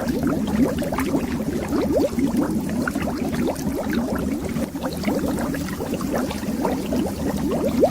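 Bubbles rising under water in a continuous dense stream: many quick, overlapping rising blips, mostly low in pitch.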